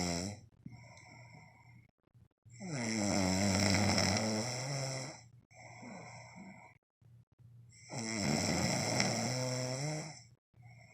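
Loud snoring: two long snores about five seconds apart, each lasting over two seconds, with softer breathing between them.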